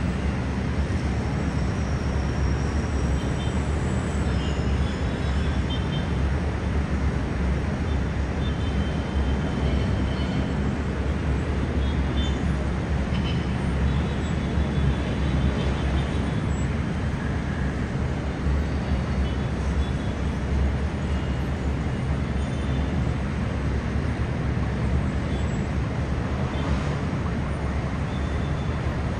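Distant city traffic heard from high above a busy avenue: a steady rumble of engines and tyres, with faint short high tones now and then.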